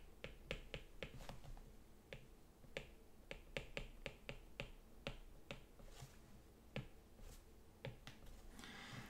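Pen stylus tapping and clicking against a tablet screen while handwriting: a faint, irregular run of short sharp clicks, several a second.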